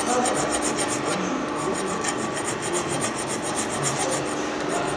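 Continuous rasping, rubbing noise with fast, evenly spaced ticks, about six a second.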